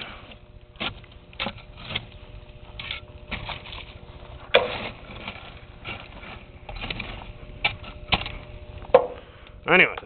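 Wood fire in the firebox of an outdoor wood furnace crackling and popping, sharp irregular pops every second or so, over a faint steady hum.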